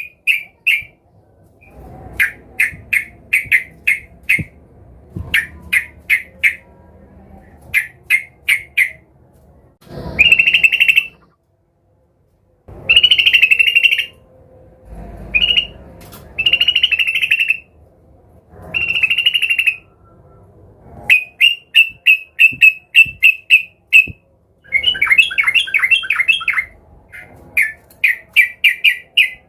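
Yellow-vented bulbul (trucukan) calling agitatedly, as if challenging a rival: runs of quick bright chirps, about five a second, alternating with longer harsh chattering notes about a second long.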